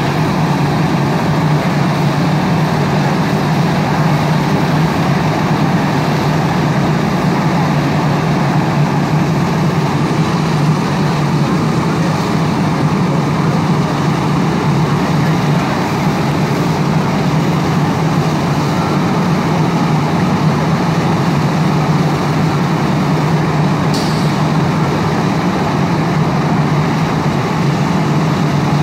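A fire engine's heavy diesel engine running steadily, with one brief click near the end.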